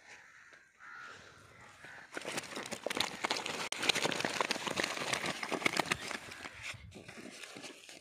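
Dense crinkling and rustling from a nylon mesh fish bag and woven plastic sack being handled close to the microphone, starting about two seconds in and thinning out near the end.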